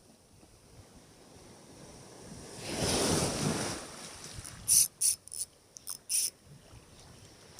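A wave washing in on the shore, swelling and fading over about a second, followed by a quick run of sharp, high clicks.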